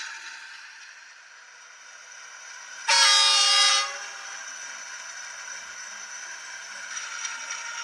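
DCC sound decoder in an N-scale DF11Z diesel locomotive model giving one horn blast of about a second through its small speaker, starting suddenly with a click about three seconds in. A steady high hiss from the decoder's running sound lies under it.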